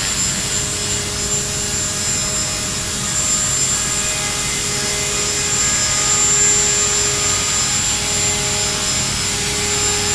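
TREX 450 electric RC helicopter hovering: the steady whine of its brushless motor and the whir of its rotor blades, with several constant tones held throughout.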